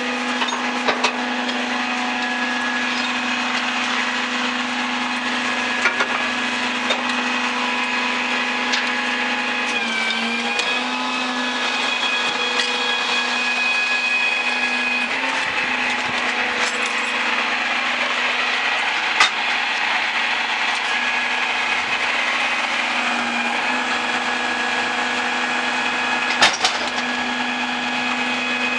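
Mack MRU garbage truck running with its Leach rear-load body's hydraulics engaged: a steady whine that sags in pitch briefly twice, at about ten seconds and about twenty-three seconds in, as the hydraulics take load. There are a few sharp metallic knocks, the loudest about nineteen seconds in and about twenty-six seconds in.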